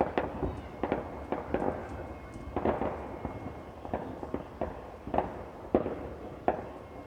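Fireworks and firecrackers going off across the neighbourhood: a rapid, irregular run of sharp cracks and pops, several a second, over a constant rumble of more distant bangs.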